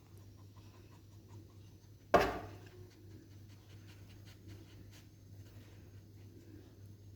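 Kittens playing in and around a cardboard box: faint light taps and scratches, with one loud thump about two seconds in. A steady low hum runs underneath.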